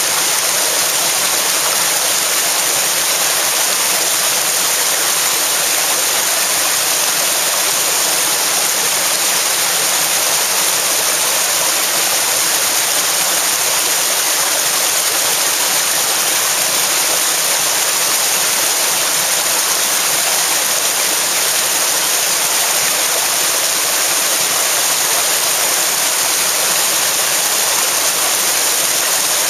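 Fast-flowing river rushing and churning around rocks: a steady, loud rush of water.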